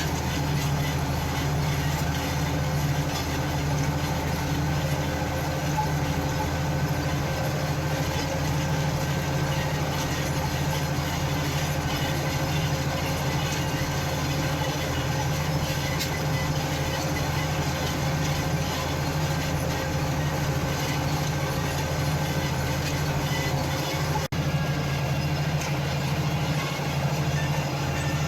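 Farm machinery engine running steadily under load, a constant low drone with a faint whine above it, briefly cutting out about 24 seconds in.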